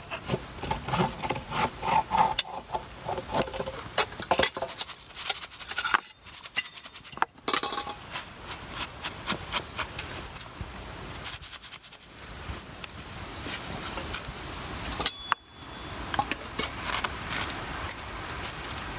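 Rattling, clinking and rubbing of objects being handled, a dense run of sharp clicks broken by several abrupt cuts.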